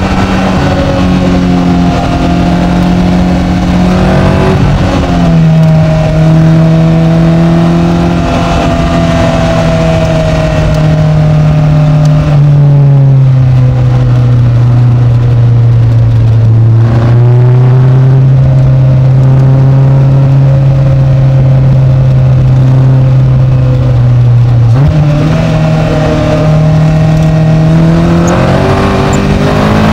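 Caterham Seven's engine heard from inside its open cockpit while driving on a track. The note steps down in pitch twice, holds steady for a long stretch, then jumps up sharply about 25 seconds in and shifts again near the end.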